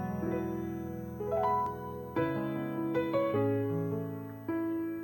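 Background keyboard music: soft sustained chords that change every one to two seconds.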